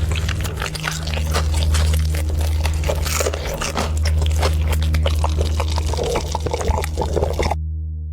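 Close-up crunching and chewing of crispy fried chicken, a fast crackle of bites, over a low, steady background music track; the crunching stops abruptly near the end, leaving only the music.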